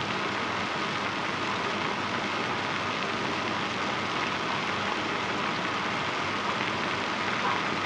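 Pot of water at a rolling boil with farfalle pasta in it: steady, dense bubbling from the starchy, foaming water.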